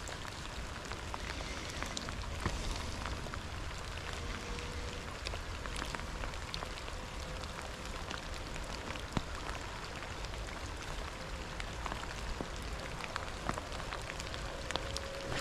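Steady rain falling, with many scattered individual drops ticking sharply at irregular moments.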